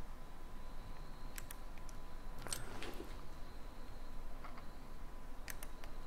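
Quiet, still ambience: a faint steady low rumble and hiss, broken by a few scattered faint clicks about a second and a half, two and a half, three and five and a half seconds in.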